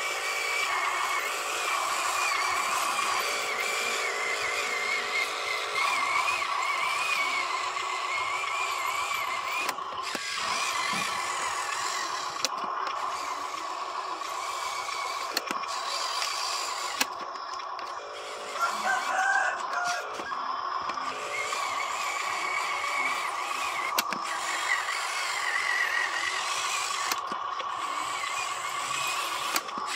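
Huina RC dump truck's electric drive motor and gearbox whining steadily as it drives, the pitch wavering with the throttle, with a few sharp clicks.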